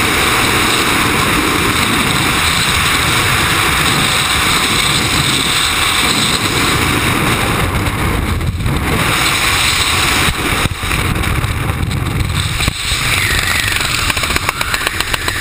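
Freefall wind rushing over the microphone of a skydiver's camera, loud and steady. In the last few seconds it breaks into rapid fluttering buffets.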